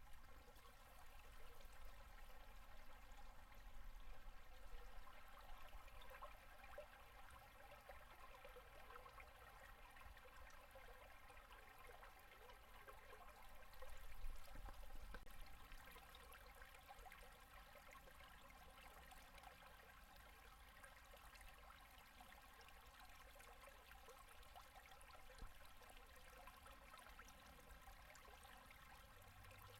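Faint, steady running water of a shallow mountain river at low winter flow, gurgling over and under its ice.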